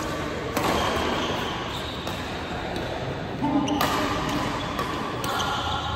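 Badminton rackets striking a shuttlecock in a rally: several sharp hits, the clearest about half a second in, near four seconds and just after five seconds, with players' voices underneath.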